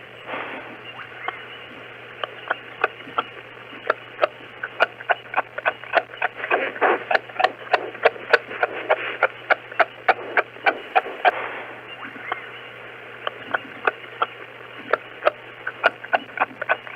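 Kangaroo making rapid, short clicking clucks, irregular at a few a second, that pause briefly past the middle and then resume, over a steady low hum.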